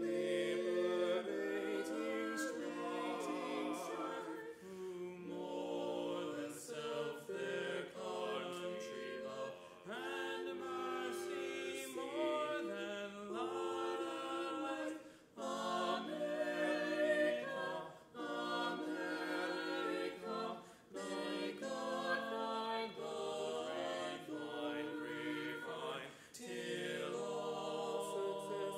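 A small mixed vocal quartet, three men and a woman, singing unaccompanied in harmony, phrase by phrase with short breaths between.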